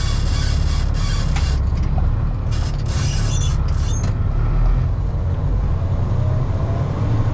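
Semi-truck's diesel engine running under way, heard from inside the cab, with cab rattles and creaks in the first half. The engine pitch rises slightly in the second half as it picks up revs.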